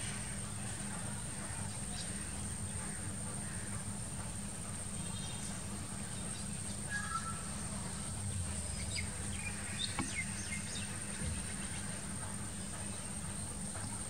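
Outdoor pond ambience: a steady low background noise and a constant thin high-pitched tone, with a few short bird chirps scattered through the middle.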